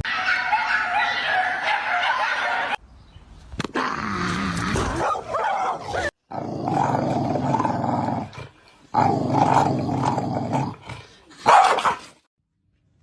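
Dogs barking and vocalising in a run of short clips, each cut off abruptly, with a brief silence near the end.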